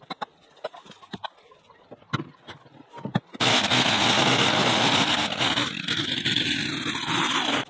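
A few scattered clicks and knocks, then from about three seconds in a string trimmer runs loud and steady, its line cutting through weeds and grass, until it cuts off suddenly near the end.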